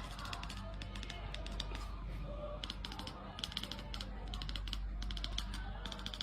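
Rapid, irregular clicking and tapping, many small sharp clicks in quick succession, some with a brief high ring.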